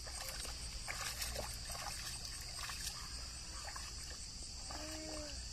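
Muddy water splashing and trickling as a flat board is dragged by rope through a flooded rice plot, over a steady high drone of crickets. Near the end comes a short animal call.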